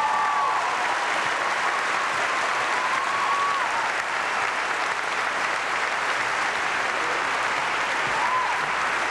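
Large audience applauding steadily, with a few short pitched shouts rising above the clapping near the start, about three seconds in and near the end.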